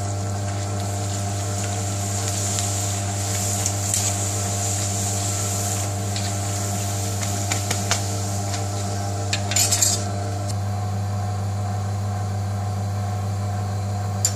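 Poppadom frying in hot oil in an iron karahi, the oil sizzling, with a metal slotted spatula clinking and scraping against the pan a few times, most in a short clatter about two-thirds of the way through. A steady low hum runs underneath.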